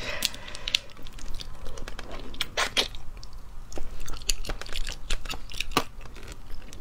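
Close-miked eating of small spiced sea snails: snail shells clicking against one another and the plate as they are picked up, the meat picked out with a toothpick, and chewing. Short, sharp clicks come irregularly, the loudest a pair about two and a half seconds in and another near the end.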